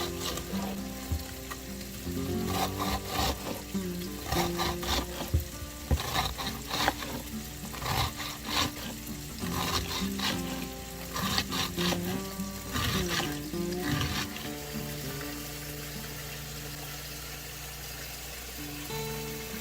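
Thinly sliced chicken breast frying in oil in a pan, sizzling, with irregular scrapes and clicks of a utensil stirring and turning it that stop about two-thirds of the way through. Soft background music plays underneath.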